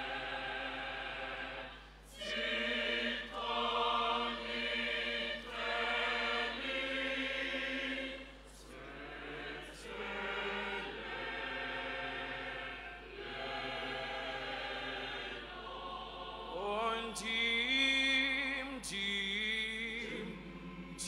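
Mixed gospel choir singing held chords in harmony, moving from chord to chord every second or two. Near the end a solo male voice rises above the choir with sliding notes.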